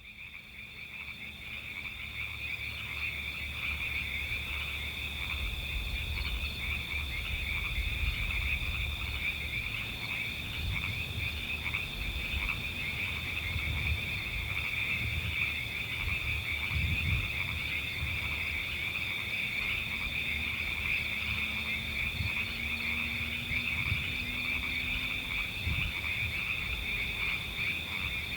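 A chorus of many frogs calling at once: a dense, unbroken high trill with irregular deeper croaks beneath. It fades in over the first couple of seconds, then holds steady.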